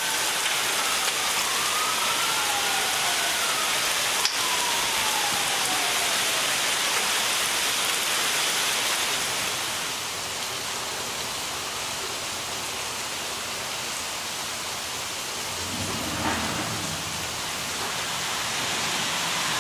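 Heavy rain falling in a steady hiss during a thunderstorm, with a low rumble about three-quarters of the way through.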